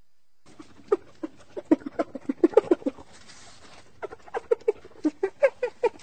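Spotted hyena laughing: two runs of rapid, short giggling calls, about six a second, the first starting about a second in and the second after a pause of about a second.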